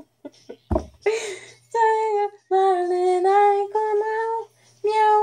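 A woman singing a pop tune without accompaniment in meow-like syllables, in long held notes. About a second in, a short low thump and a breathy burst come before the singing.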